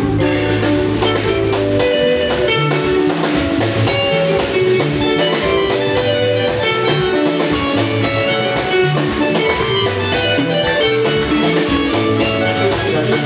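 Live band playing: interlocking electric guitar lines over bass guitar and drum kit, loud and steady.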